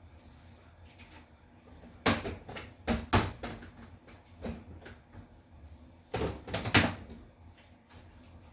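Knocks and clacks of household things being handled, in two short clusters about two seconds in and about six seconds in, with a lighter knock between.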